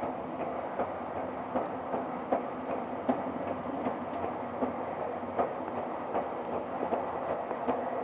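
Tulpar-Talgo passenger train running at speed, heard from inside a carriage: a steady rolling rumble of wheels on rail, broken by frequent short knocks and clicks of the wheels over the track.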